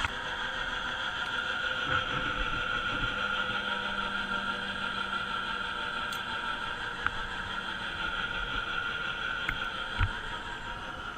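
An engine running steadily at an even pitch, with a few faint knocks.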